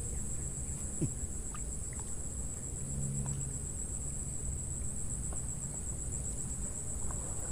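Insects trilling steadily at a high pitch, over a low outdoor rumble and a few faint ticks.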